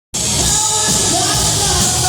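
Rock band playing live, loud and amplified, with a singing voice over the instruments. The sound cuts in abruptly at the very start, already mid-song.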